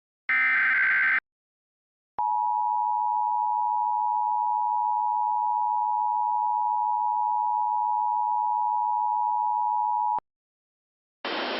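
Emergency Alert System tones for a Winter Storm Warning. First comes a SAME header data burst of just under a second. After a second's pause, the two-tone EAS attention signal (853 and 960 Hz) sounds steadily for about eight seconds and cuts off. About a second before the end, a steady hiss with a high whistle-like tone begins.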